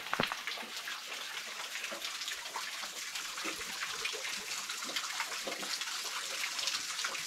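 Stream water trickling and splashing among boulders: a steady patter of small drips and gurgles, with one brief knock right at the start.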